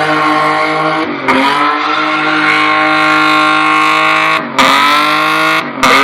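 Car engine revved hard and held at high revs, with sharp dips in pitch about a second in, again about four and a half seconds in and just before the end as the throttle is snapped off and back on.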